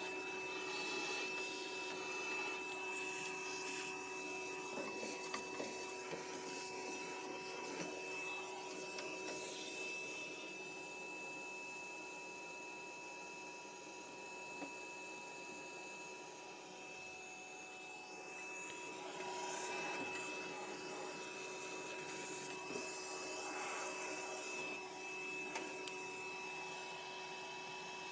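Shop vacuum running steadily with a constant whining hum, its hose nozzle working inside a gas furnace to suck up loose rust, with a few faint knocks of the nozzle against the metal. It dips slightly quieter around the middle.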